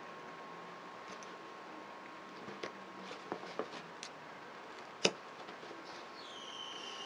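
Faint scattered ticks and clicks of hand work on a carpet fringe with a small metal needle tool, over a steady hiss with a faint steady tone. A sharper single click about five seconds in is the loudest. Near the end a high tone rises in and holds.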